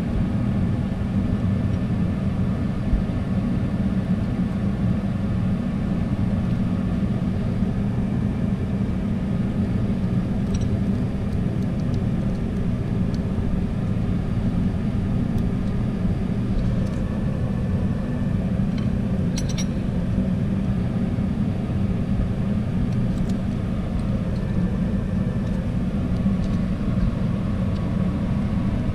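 Steady low rumble of background machinery, even and unchanging, with a few faint clicks from hand tools about ten and twenty seconds in.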